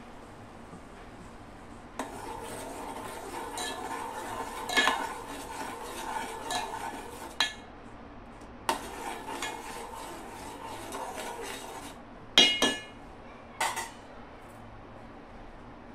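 Metal spoon stirring liquid in an aluminium pot, scraping and clinking against the sides in two spells after a quiet start. Near the end come two sharp metal clanks, the loudest sounds, as the spoon knocks against the pot.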